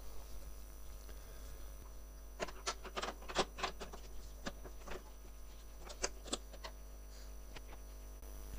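Scattered light clicks and taps of small metal parts and hand tools being handled on a snow thrower during reassembly. They come in two clusters, one a little before halfway and one about three quarters of the way through.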